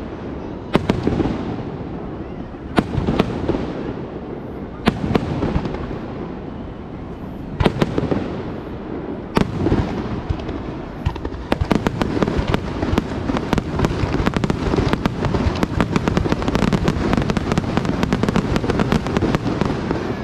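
Aerial fireworks shells bursting: single loud booms about every two seconds, each trailing off in echoes, then from about halfway a rapid barrage of many crackling reports packed close together.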